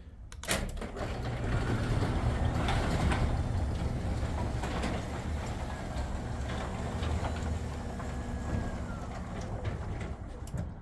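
Chamberlain/LiftMaster wall-mounted garage door opener running the garage door: a click about half a second in, then a steady, pretty quiet mechanical hum that stops shortly before the end.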